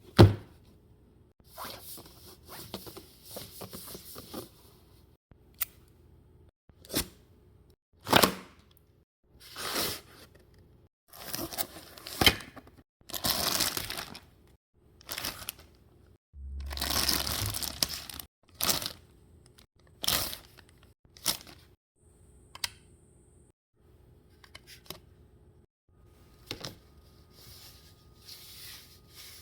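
Packaging of an anime figure being opened by hand: a series of tearing and rustling sounds of cardboard and plastic, broken up by sharp clicks and taps, with the loudest click right at the start.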